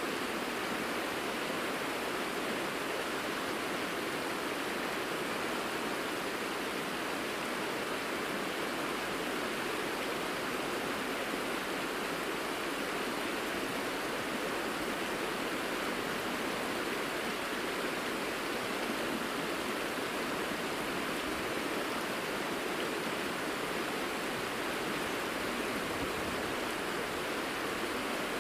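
Shallow mountain river running over a gravel bed: a steady, unbroken rushing of water.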